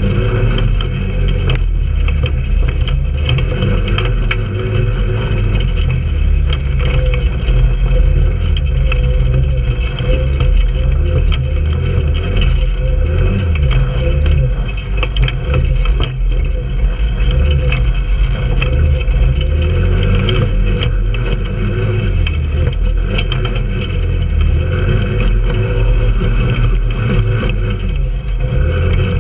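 Trailmaster 150 go-kart's 150cc single-cylinder four-stroke engine running under throttle, heard from on board as the kart drives over rough dirt. The engine note swells and dips, with scattered knocks and rattles as the kart goes over bumps.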